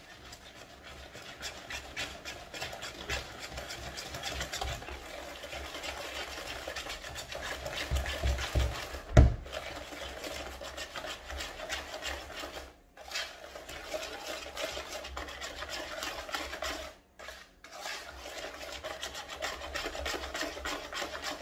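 Almonds being ground: a continuous rasping scrape that stops briefly twice, with one sharp knock about nine seconds in.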